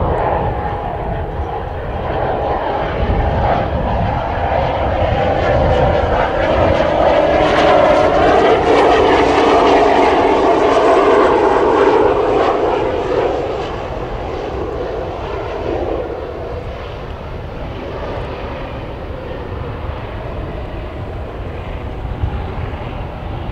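Pilatus PC-12 NGX's single Pratt & Whitney Canada PT6 turboprop engine and propeller as the aircraft comes in to land. Its whine builds and drops in pitch as it passes, loudest around the middle, then falls to a lower, steadier drone after touchdown.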